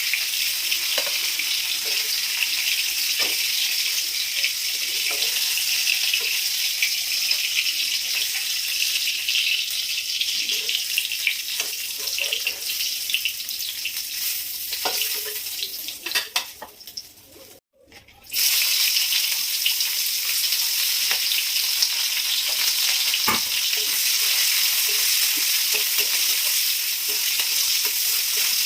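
Prawns frying in hot oil in a pan: a steady sizzle with small clicks of stirring. The sound drops out briefly about two-thirds of the way through, then the sizzle resumes.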